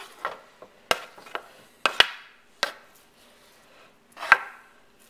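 A kitchen spoon knocking and scraping on a wooden cutting board and a skillet as sliced sausage is pushed into the pan: about six sharp, irregular knocks, the loudest about four seconds in.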